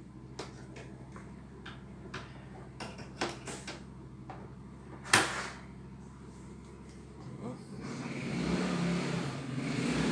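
Plastic embroidery hoop being slid onto the carriage arm of a CNY E900 embroidery machine: light clicks and rattles, then one sharp snap about five seconds in as it latches into place. A steady mechanical running noise builds up over the last few seconds.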